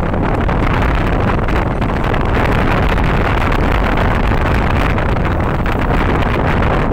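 Steady wind buffeting the microphone of a rider on a moving Yamaha NMAX scooter, a loud even rush that drowns out the engine.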